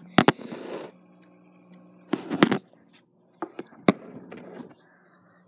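Handling noise from a phone camera held close to a fish tank: a few sharp clicks and taps with short rustles, two near the start, a cluster about two seconds in, and two more around four seconds in.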